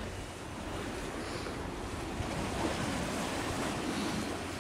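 Steady seaside ambience: wind and small waves washing, with a low steady rumble underneath.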